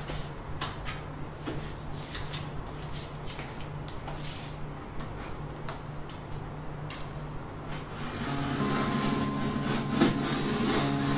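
Box cutter slitting the packing tape along the top of a large cardboard shipping carton, a run of short scrapes and rubs against the cardboard. Background music comes in about eight seconds in.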